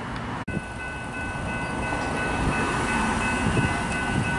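Railway level crossing warning bells ringing steadily with the boom gates down, over a rumble of road traffic and an approaching train that grows louder. The sound cuts out briefly about half a second in.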